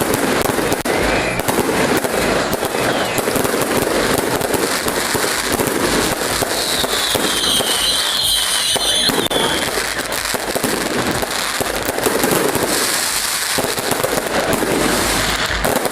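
Fireworks display: a continuous barrage of rapid bangs and crackling, with a high shrill whistle for about two and a half seconds midway.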